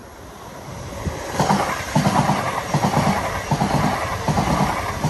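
Hitachi Class 395 Javelin electric multiple unit approaching and then running past close by. It rises from a faint rumble to loud about a second and a half in, with a rhythmic beat of wheels on rail.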